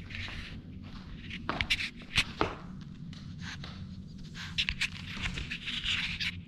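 Close-up scuffling, scraping and tapping from a pug puppy playing right at the camera, with a few sharp clicks among the rustling.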